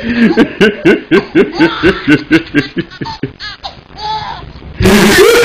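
A man laughing hard in rapid, high-pitched bursts, several a second, easing off around three and a half seconds in. Near the end the sound cuts abruptly to louder, fuller, continuous audio.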